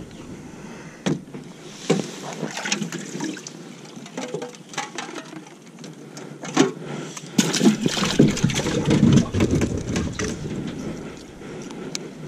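Metal livewell lid on a bass boat clattering as it is lifted and handled, with scattered knocks and a busier burst of clatter and water splashing in the second half as a white perch goes into the livewell.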